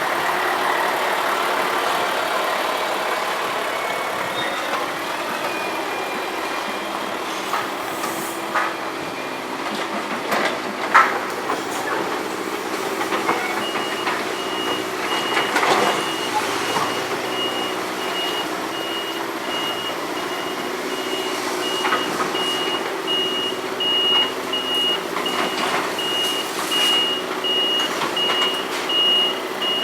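Renault truck's diesel engine running steadily, with occasional knocks and clanks. From about a third of the way in, its reversing alarm beeps at an even pace, a single high tone repeated, as the truck backs up.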